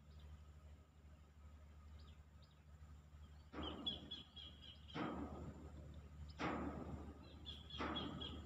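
Riverside outdoor ambience: a steady low hum, with four bursts of rushing noise about every second and a half in the second half. A bird chirps in quick high notes during the first and last bursts.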